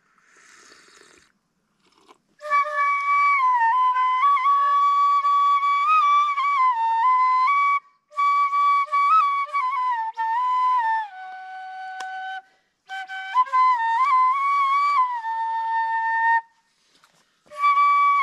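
Solo flute music: a single melody line that begins about two and a half seconds in and is played in phrases with short breaks between them.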